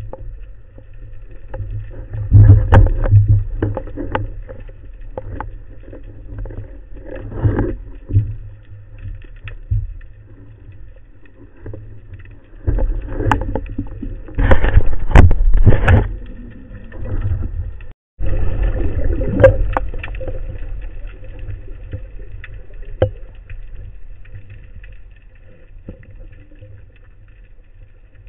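Water noise picked up by a waterproof camera housing mounted on a speargun: a steady low rumble with irregular knocks and splashes as the gun is handled at the surface, loudest in bursts about 2 and 14 seconds in. After a brief dropout at about 18 seconds the rumble goes on and slowly fades.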